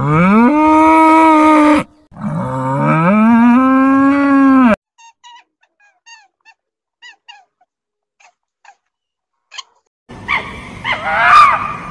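Two long animal calls, each rising in pitch, then a series of short, high chirps, then a dog barking and yelping from about ten seconds in.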